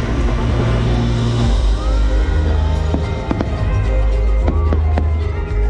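Fireworks show music playing loudly with a deep bass, with fireworks going off over it; several sharp bangs come in the second half.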